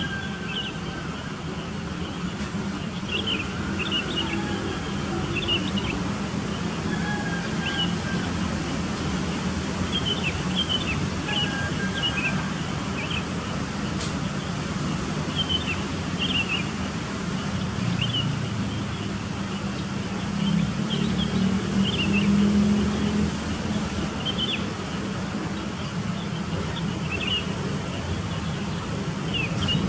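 Steady low rumble of motor traffic, swelling briefly past the middle, with short, high chirps of small birds scattered through it.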